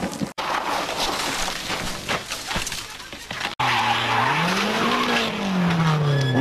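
Two rally-crash clips back to back. First comes a rushing, scraping noise with scattered knocks from a car skidding on a loose surface. After a sudden cut, a rally car's engine revs, its pitch rising and then falling away as the car slides through a bend and off the road.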